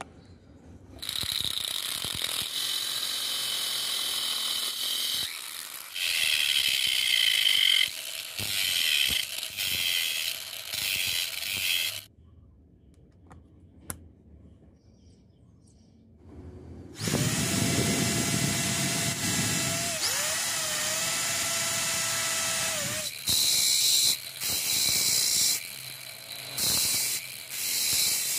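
Power tools running in a series of loud bursts, with a few seconds of steady motor whine in the middle. Near the end, an angle grinder's disc grinds a small metal strip in short bursts.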